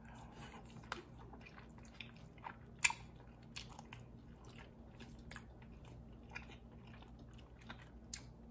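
Faint chewing with scattered small irregular mouth clicks, the sharpest a little before three seconds in, over a steady low electrical hum.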